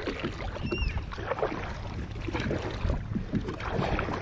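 Kayak paddle strokes: the blades dipping and splashing in sea water, with water sloshing along the hull. A brief high squeak or chirp sounds about a second in.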